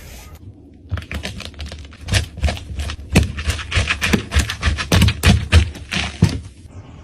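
A rapid, irregular series of sharp clicks and taps, several a second, starting about a second in and stopping shortly before the end.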